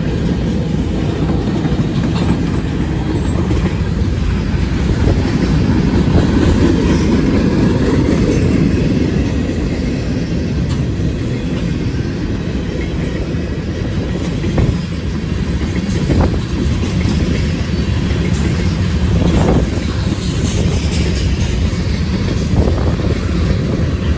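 Freight cars of a manifest train rolling past close by: a steady rumble of steel wheels on the rails, with a sharp clack over the rail joints now and then.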